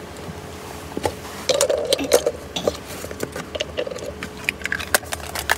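Close-up eating sounds: a person chewing food, with scattered sharp clicks and taps of a spoon.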